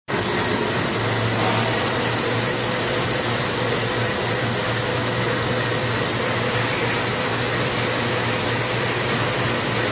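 FSE CHP1000 heat perforation and punching machine running: a steady whirring hiss with a faint hum.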